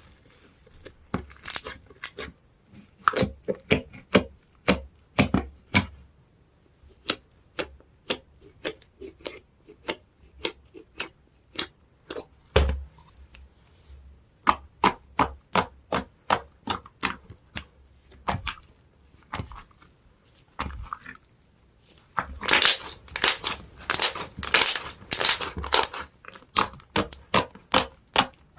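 Slime being pressed and squeezed by hand, giving a long run of sharp popping clicks a few times a second, densest and loudest near the end.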